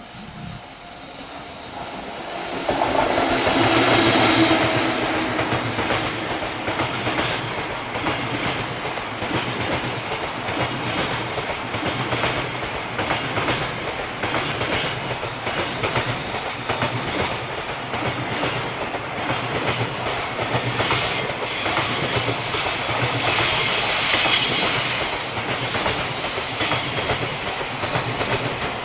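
JR freight train passing close by: the locomotive comes up loud about four seconds in, then a long line of wagons follows with steady rhythmic clickety-clack of wheels over rail joints. Brief high wheel squeals come through in the later part.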